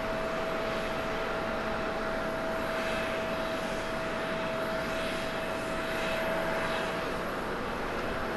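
Airbus A350-941 airliner's Rolls-Royce Trent XWB turbofans running at approach power as it flares low over the runway to land: a steady jet rush with a steady whine.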